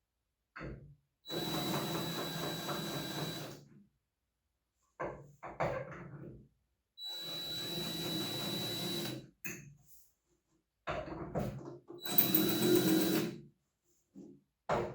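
Power drill running in three steady bursts of a couple of seconds each, drilling or tapping the holes for a hood-shock bracket, with short clicks and knocks of handling between the runs.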